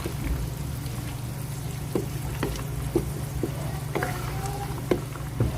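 A spoon stirring a pot of simmering chicken liver and gizzard adobo in soy sauce, knocking against the pot several times at uneven intervals over a steady low hum.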